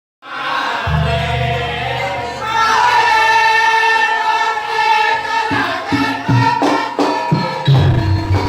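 Music: a sustained choir-like chord of singing voices over a low drone, with separate drum strikes coming in about five and a half seconds in and the full band with bass joining near the end.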